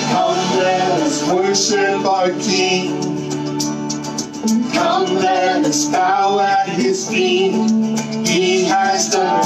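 Live worship song: a man and a woman singing together into microphones, backed by electric guitar.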